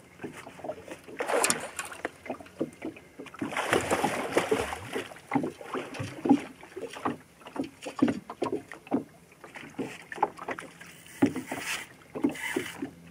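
Sea water lapping and slapping irregularly against the hull of a small open boat, with louder rushes of noise about one and four seconds in.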